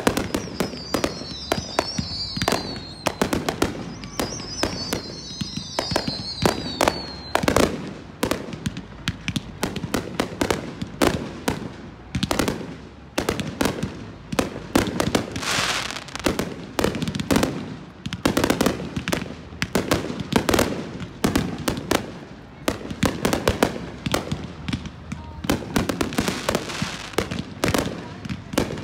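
Aerial fireworks display: rapid, overlapping bangs and crackling bursts throughout, with high wavering whistles over the first seven seconds or so.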